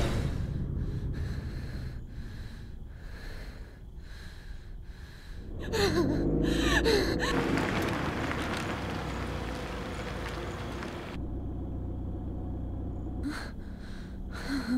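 A frightened person breathing fast and shallow, about two breaths a second, breaking into louder, strained gasps about halfway through.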